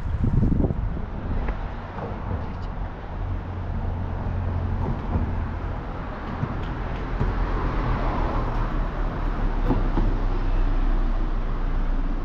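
City street traffic: a motor vehicle's engine running low and steady with tyre and road noise that swells as it passes close, loudest about eight to ten seconds in.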